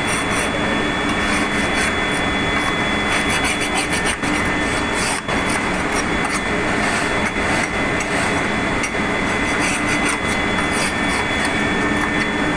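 Continuous rasping of a hand tool scraping deposits off a large curved metal part, over the steady drone and whine of ship's engine-room machinery.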